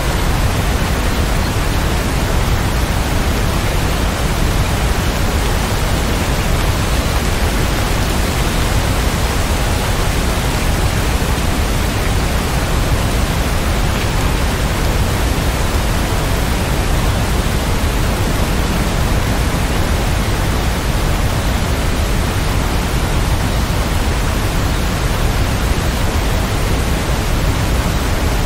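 Steady rain, an even, unbroken hiss with much of its weight low down. No single drops or thunder claps stand out.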